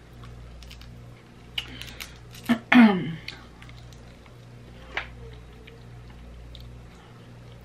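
Boiled shrimp being peeled by hand, with a few sharp clicks and crackles of shell close to the microphone. A short vocal sound falling in pitch, like a hum or a throat clear, comes a little under three seconds in and is the loudest moment. A faint steady electrical hum runs underneath.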